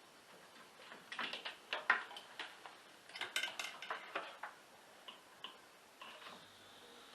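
Irregular run of sharp clicks and light metallic taps, thickest through the middle and thinning out near the end.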